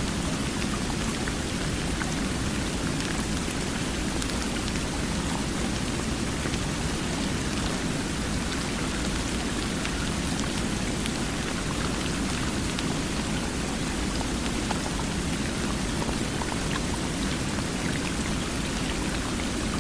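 Steady, even rush of water, unchanging throughout, with scattered faint drop-like ticks.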